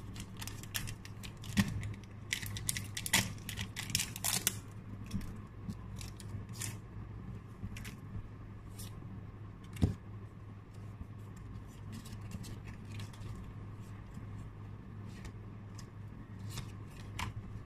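A trading-card pack's plastic wrapper crinkling and tearing as it is opened, then cards being handled and shuffled, with scattered light clicks and one sharper knock about halfway through. A steady low hum runs underneath.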